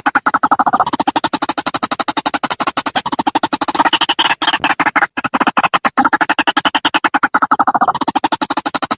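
Recorded white-breasted waterhen lure call: a loud, rapid run of croaking pulses, about nine a second, that swells and changes in tone, the phrase starting over about seven seconds in.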